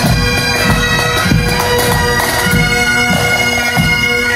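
Bagpipes playing a tune: a steady drone held under a chanter melody that moves from note to note.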